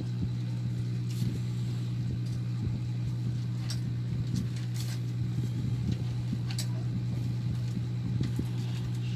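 A steady low hum, with a few scattered light clicks and rustles over it.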